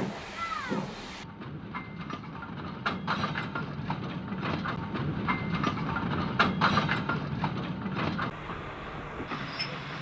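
Train running on rails, with a low rumble and irregular clicks and rattles of the wheels over the track.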